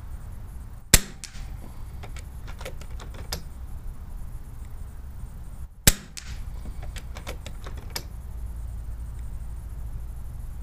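Two shots from an FX Impact PCP air rifle firing .25-calibre pellets, each a single sharp crack, about five seconds apart. Lighter clicks come between and after the shots.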